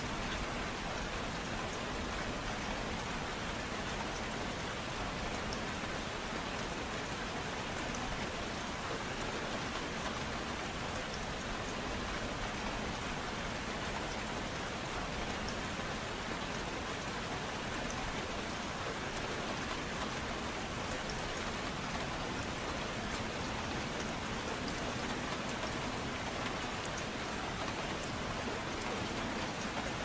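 Steady, gentle rain: an even hiss of rainfall with scattered faint ticks of individual drops, with no thunder and no music.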